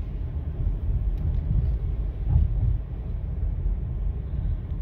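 Steady low rumble of a car driving, heard from inside the cabin: engine and tyre noise.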